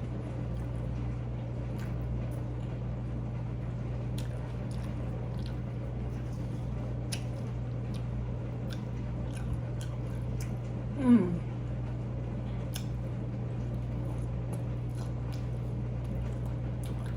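Chewing and biting food, with small scattered clicks, over the steady low hum of a running dishwasher. A short falling vocal sound comes about eleven seconds in.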